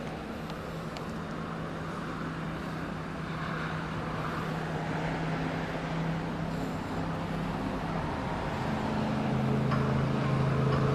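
Street traffic with a motor vehicle's engine running close by, a steady low hum that grows louder over the last few seconds.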